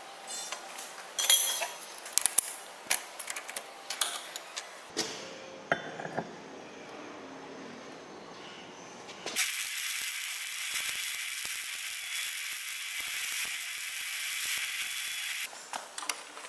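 Sharp metallic clinks and clicks as a steel sprocket with a welded shaft is handled and turned, followed by about six seconds of steady hiss.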